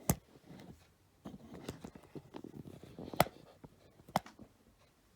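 Packaging being handled while it is opened: faint rustling and scraping with three sharp clicks.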